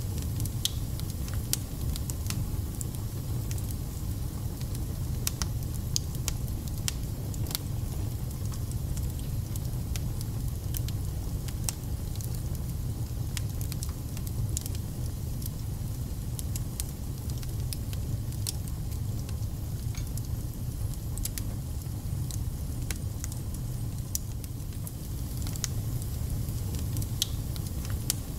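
Wood fire burning in a fireplace: a steady low rumble with frequent irregular crackles, pops and spits.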